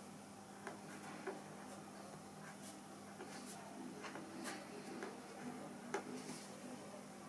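Brush pen writing on paper: a scatter of light, short scratches and taps from the tip as letters are stroked out, over a faint, low, steady hum.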